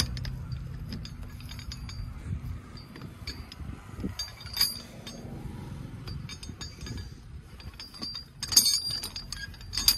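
A heavy iron chain clinking and rattling as it is worked loose by hand from a tractor hitch, with the sharpest clanks about four and a half seconds in and again near the end. A tractor engine runs low underneath, mostly in the first couple of seconds.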